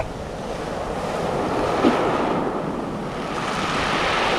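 Sea surf breaking and washing up a pebble shingle beach, a steady rush that eases and then builds again as the waves come in.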